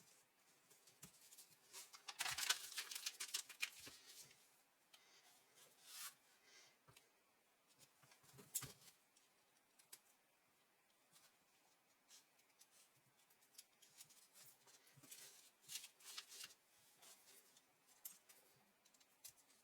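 Faint, scattered clicks and rustles of small plastic Lego Technic parts being handled and fitted together, in a quick cluster about two seconds in and then a few isolated clicks, over near silence.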